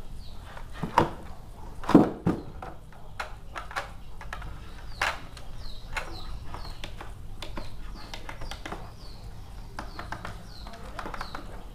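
Clicks and knocks from handling a drone's plastic remote controller, the loudest about one and two seconds in. A bird chirps repeatedly in the background: short falling chirps about every half second to second.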